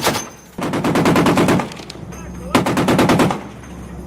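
Browning M2 .50-calibre heavy machine gun firing: one sharp report at the start, then two bursts of rapid fire, each about a second long, with a short pause between them.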